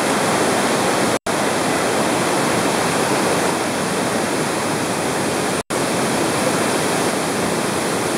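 Fast floodwater of an overflowing creek rushing steadily, a dense even wash of water noise that cuts out briefly twice.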